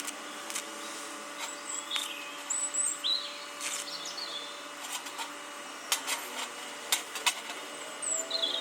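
Small birds chirping in short, scattered calls, with a handful of sharp clicks and knocks and a faint steady hum underneath.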